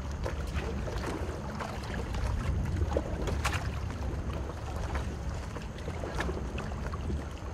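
Sea water splashing and lapping around a small boat over a steady low rumble, with scattered sharper splashes.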